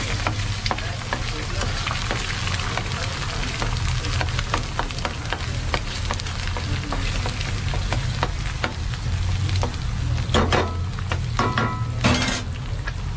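Eggs sizzling and crackling in oil in a black frying pan while a steel spoon scrapes and presses against the pan to spread the yolks. A few louder scrapes and a clatter come near the end, over a steady low hum.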